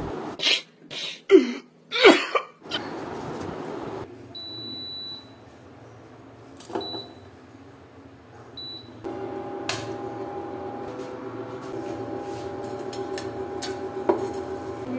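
Induction cooktop beeping as its touch buttons are pressed: a long beep, then two short ones. About nine seconds in, its fan and heating coil start up with a steady hum under a steel saucepan of oil, with a couple of clinks as the pan is handled. A few loud, irregular sounds come first, in the opening seconds.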